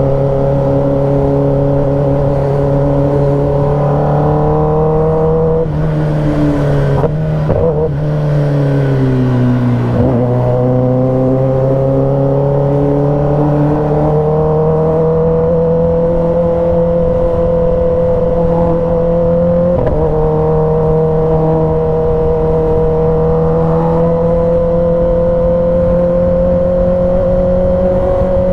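Kawasaki ZX-10R inline-four engine running under way. It holds a steady pitch, rises slowly, drops off as the bike slows from about six to ten seconds in, then picks up again and holds.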